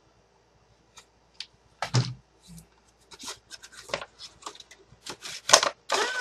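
Cardstock paper petals rustling and crinkling as they are handled and pressed into place, sparse at first and busier in the second half, with a single knock about two seconds in.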